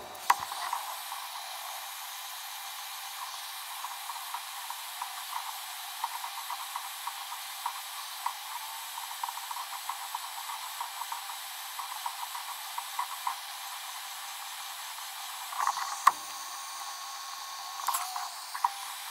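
Handheld electric heat gun blowing a steady hiss of hot air, softening the kayak's plastic around the scupper hole until it goes glossy, ready for the mesh to be pressed in. Faint light crackles run through it, with a couple of knocks near the end.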